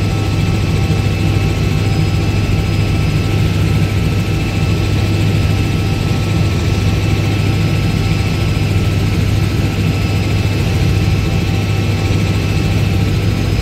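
Helicopter in flight: steady rotor and engine noise, a deep even hum with faint high whining tones above it.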